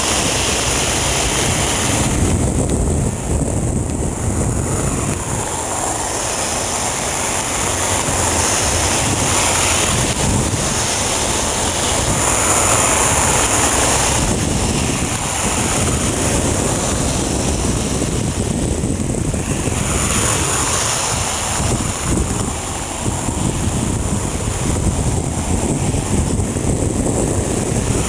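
Airbus A380's jet engines running as the airliner rolls along a flooded runway, mixed with gusty wind on the microphone and the rushing hiss of spray. The level swells and dips with the gusts.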